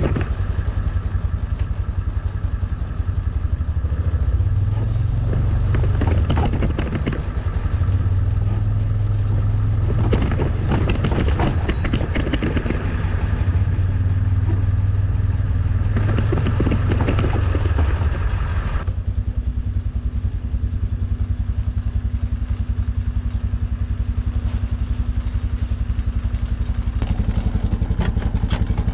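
A heavy machine's engine running with loud clattering and knocks as it works. About nineteen seconds in, the clatter eases and the engine settles to a steadier run.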